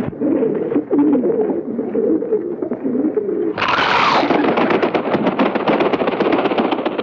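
A flock of pigeons cooing, then about three and a half seconds in a sudden loud burst as the flock takes off in a rapid clatter of wingbeats.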